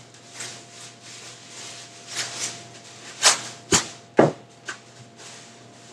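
Thin plastic grocery bag being handled and shaken open, rustling softly at first, then a few sharp crackles and knocks about three to five seconds in.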